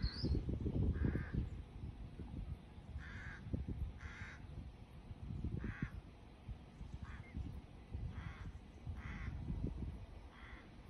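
A crow cawing, about nine harsh caws at irregular intervals, over a low gusty rumble that is loudest in the first second or two.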